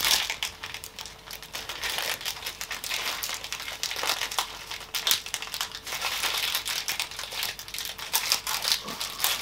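Plastic snack wrapper of a Kinder Bueno bar crinkling as it is peeled open by hand, a long run of small irregular crackles.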